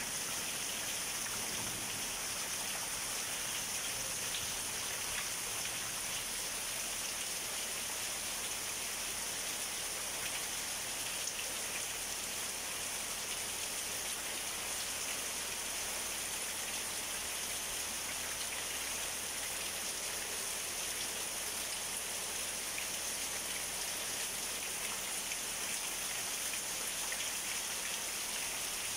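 Steady monsoon rain falling on leaves and the ground: an even, unbroken hiss that holds at one level throughout.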